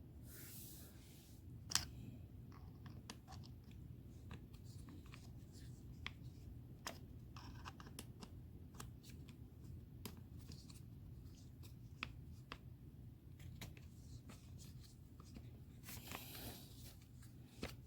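Faint, scattered small clicks and scrapes of a driver bit and metal parts as a screw deep inside an air rifle's grip is worked loose, with a soft rustle near the end.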